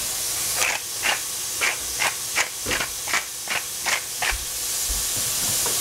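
Green beans and capsicum sizzling in a hot pan, with about ten quick scrapes of a spatula stirring them, roughly two or three a second, which stop about four seconds in while the sizzling goes on.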